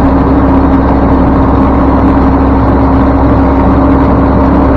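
Dump truck's diesel engine running steadily on the road, heard from inside the cab: a loud, even drone with one constant tone through it.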